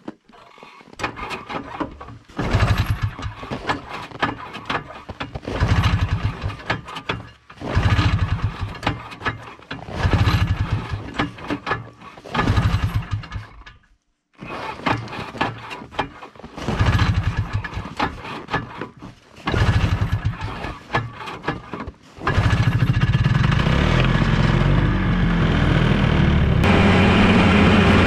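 Ski-Doo Tundra snowmobile engine being pull-started, freshly reassembled and on a small splash of gas: about nine pulls of the recoil starter, each turning the engine over briefly without it catching. About 22 seconds in it fires and keeps running steadily.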